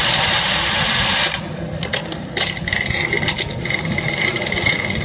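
Ground fireworks fountains spraying with a loud, even hiss that cuts off suddenly about a second in. Scattered sharp cracks and pops follow, with a steady high tone holding from about halfway through.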